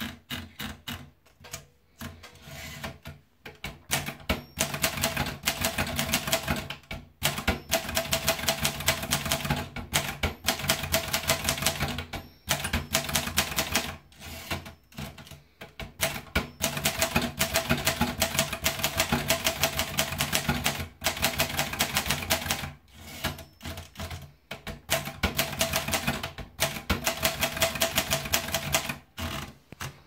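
Neckermann Brillant Junior portable manual typewriter being typed on: quick runs of keystroke clacks broken by short pauses.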